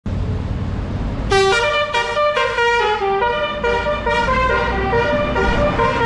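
A tour bus's telolet Basuri musical air horn plays a fast tune of short, changing notes, starting about a second in, over the low rumble of the bus engine.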